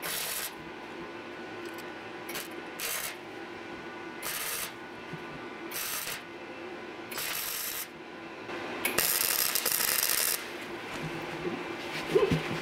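Flux-core wire-feed welder laying tack welds on thin car-body sheet metal, slowly filling a hole burned through the panel. The arc runs in about seven short spells of half a second or so, with the last lasting about a second and a half. A short knock comes near the end.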